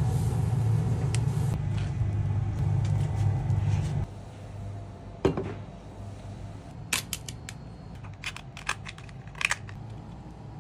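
A steady low hum with a faint crackle while king crab legs sit on a charcoal grill, stopping abruptly about four seconds in. Then a single knock as a ceramic platter is set down on a table, followed by a run of sharp cracks and snaps as the boiled king crab leg shells are broken open by hand.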